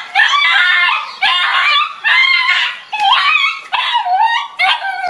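Dog yelping in a run of about six high-pitched cries, each under a second long with short breaks between, as it tussles with a stuffed toy tiger.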